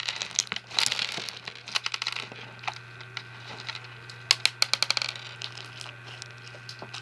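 Fishbowl slime with plastic beads being squeezed and kneaded by hand, giving rapid crackling and clicking, dense at first, then quieter, with another cluster of sharp clicks about four seconds in.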